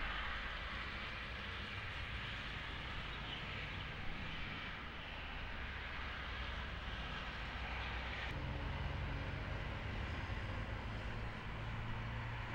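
Boeing 737 airliner's twin jet engines running at low taxi power as the plane turns on the runway: a steady hiss and hum, with a low drone coming in about eight seconds in.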